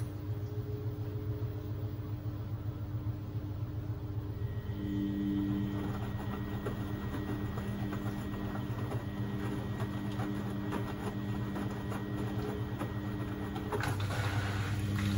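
Beko WMB71642W washing machine running mid-cycle: a steady motor hum, with a higher whine joining about five seconds in, and the sound growing louder near the end.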